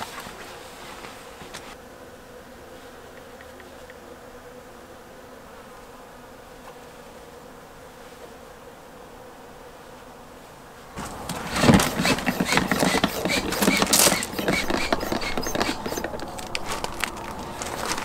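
Quiet, steady ambience with a faint hum for about the first ten seconds, then a sudden change to much louder clattering and handling, with a small pump buzzing as kerosene is pumped from a jerry can to refuel a kerosene heater.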